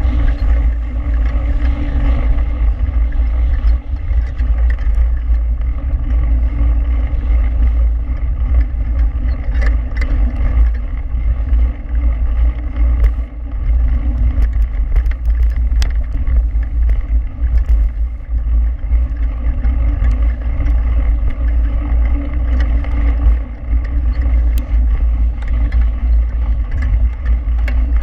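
Steady ride noise of a mountain bike rolling fast down a dirt track, picked up by a handlebar-mounted GoPro: a deep rumble of wind buffeting and tyre vibration, with scattered small ticks and rattles.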